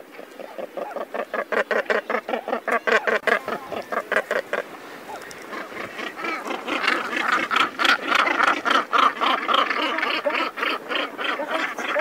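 Northern gannets calling: harsh, rapidly repeated calls, several birds at once. A louder, higher-pitched run of calls takes over from about six seconds in.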